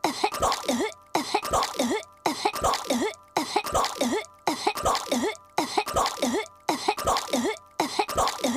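A cartoon girl's voice coughing and hacking on a piece of gum. A short burst of a few coughs repeats in a seamless loop a little more than once a second.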